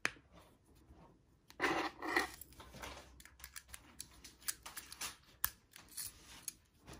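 Plastic Mercedes-Benz key fob being handled and reassembled: a scraping rub about one and a half seconds in, then a run of small sharp clicks and taps as the metal emergency key blade is slid into the fob.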